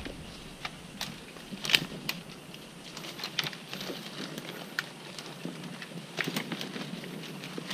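Irregular rustling and crackling of dry palm fronds and leaf litter being stepped on and pushed aside over rocky ground, with a sharper snap about two seconds in.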